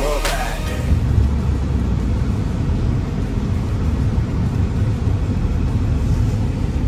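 Steady low rumble of a car on the move, heard from inside the cabin, after a music track fades out about half a second in.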